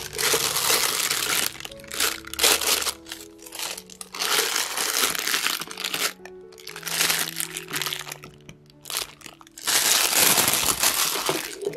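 A clear plastic disposable piping bag crinkles in repeated bursts of a second or two as a spatula scrapes stiff cookie dough into it and hands squeeze and handle the bag. Soft background music plays underneath.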